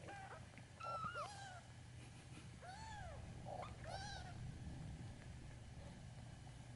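Very young kitten mewing: about five short, high, arching mews in the first four seconds or so, then quiet.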